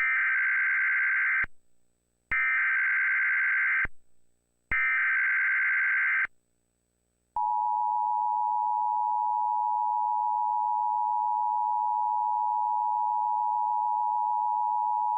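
Emergency Alert System header: three short bursts of SAME data tones, each about a second and a half long, then the steady two-tone EAS attention signal starting about seven seconds in.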